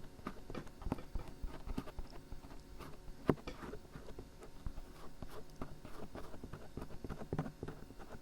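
Dried glue peeling and crackling off the ear of a binaural dummy-head microphone: close, irregular small clicks and ticks, with one sharper snap about three seconds in.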